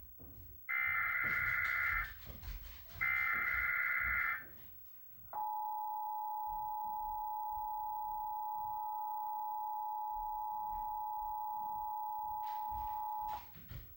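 Emergency Alert System monthly test tones: two short, buzzy SAME header data bursts about a second long each, then, after a brief pause, the steady two-tone EAS attention signal (853 and 960 Hz) held for about eight seconds before cutting off.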